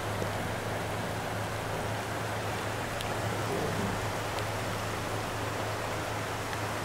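Steady rush of rain and muddy floodwater running over a flooded field bank, with a steady low hum underneath.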